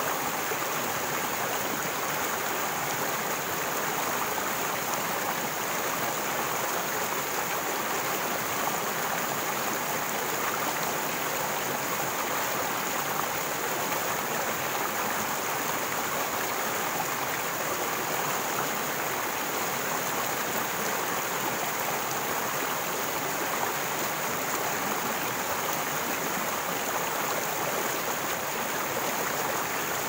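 Shallow rocky stream flowing over a small cascade between boulders: a steady, unbroken splash and rush of white water.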